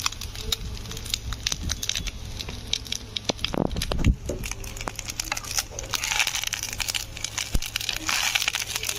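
Fish roe frying in an iron kadhai over a wood fire: irregular crackling and clicks from the pan and metal spatula, with stronger sizzling bursts about six seconds in and again near the end, and a louder knock about four seconds in.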